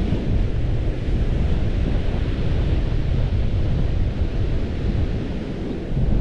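Strong wind buffeting the microphone, with the steady wash of breaking surf behind it.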